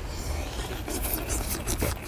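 Metal utensils scraping and tapping on a cast-iron pot-lid griddle, a quick series of short rasping strokes, over a steady low rumble.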